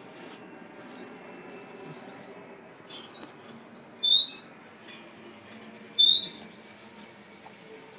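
Small birds chirping in short high notes, with two louder, brief high-pitched calls that glide upward, about four and six seconds in.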